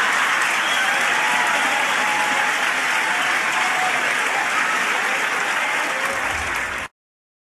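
Large audience applauding steadily, then cutting off abruptly about seven seconds in.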